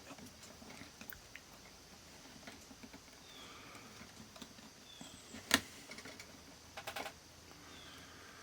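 Small sharp clicks and taps of small plastic and metal parts being handled, from a multimeter opened up for repair. One louder click comes about five and a half seconds in, and a quick rattle of clicks comes near seven seconds.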